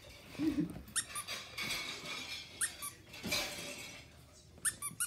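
Squeaky dog-toy squeaks played from a tablet app: several short, high squeaks, about one to two seconds apart, with two close together near the end. Rustling between the squeaks, and a short low grunt about half a second in.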